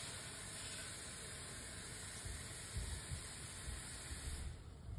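Faint steady hiss, with a few soft low thumps about three seconds in.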